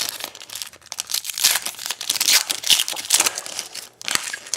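Trading-card pack wrapper crinkling and tearing as a pack of football cards is opened by hand, with irregular crackles, a short lull near the end, then more crinkling.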